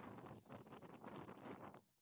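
Faint rustling of leafy vines brushing past, a run of irregular crackles that stops just before the end.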